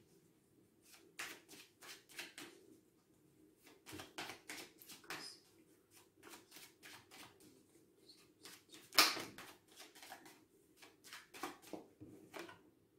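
A deck of oracle cards being shuffled by hand: a run of soft, quick card flicks and rustles, with one sharper slap about nine seconds in. Near the end a card is laid down on the wooden table.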